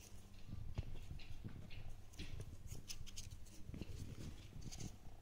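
Faint rustling and scattered small clicks of a cardboard firework box and the paper wrapping of firecrackers being handled.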